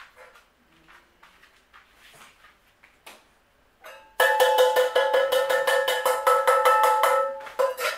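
A few faint soft clicks, then about four seconds in a sudden loud electronic musical ringing: several steady tones pulsed by a fast even rattle of about seven beats a second. It lasts about three seconds and cuts off abruptly.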